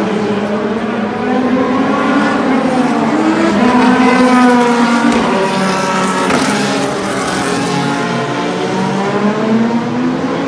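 IndyCar race cars with 2.2-litre twin-turbocharged V6 engines passing the grandstand at speed. Several engine notes overlap, each rising and then falling in pitch as a car goes by, loudest a few seconds in.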